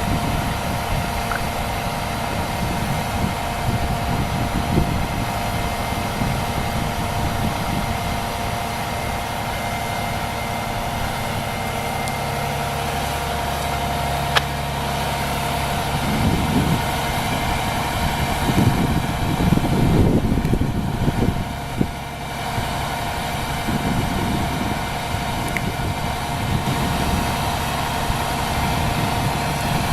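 Fire truck engine idling steadily, with a constant hum over a low rumble.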